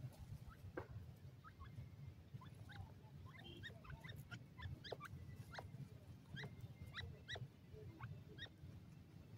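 Young grey francolins giving faint, short, rising peeps, many of them scattered irregularly, over a low steady background rumble.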